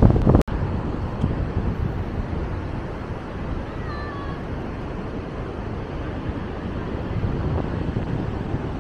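Wind rumbling on the microphone, a steady low noise with a sudden brief dropout about half a second in. About four seconds in, a faint short call sliding slightly down in pitch sounds once.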